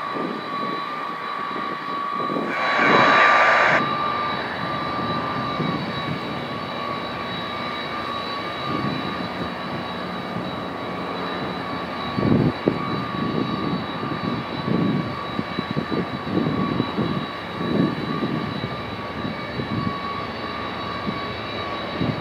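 Steady high turbine whine from a parked Airbus A300B4-203 freighter, over a rushing rumble, with a louder rush of noise about three seconds in.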